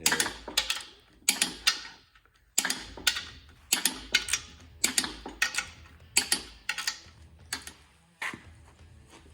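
Metal engine parts and hand tools clicking and clinking: a string of sharp, irregular clicks, often in pairs, about two a second.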